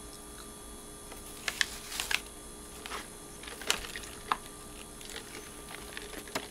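Irregular light clicks and crinkles, a few a second and some sharper than others, from food and its paper wrapping being handled on the table.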